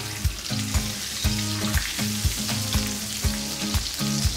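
Breaded chicken balls deep-frying in hot oil, a steady sizzle. Background music with a steady beat, about two beats a second, runs under it.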